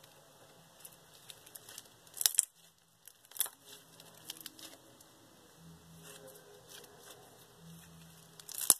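Foam bead slime squeezed and worked by hand, giving off crunchy crackling and popping as the beads rub and snap. There are louder crunches about two seconds in, three and a half seconds in, and near the end.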